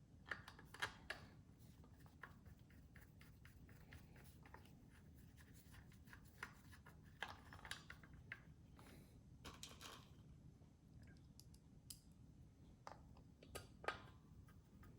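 Faint scattered clicks and scraping of screws being driven by hand into the metal housing of an LED par light, over a low room hum.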